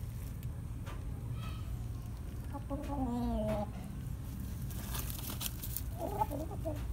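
Domestic rooster clucking: one drawn-out call falling in pitch about three seconds in, then a short run of clucks near the end, over a steady low rumble.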